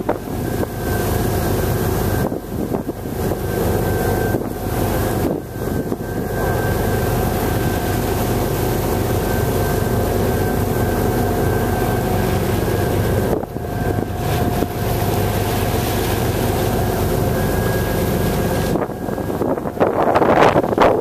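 Boat engines running steadily underway, a constant drone with a whine held on top, and wind buffeting the microphone. There is a louder rush of wind near the end.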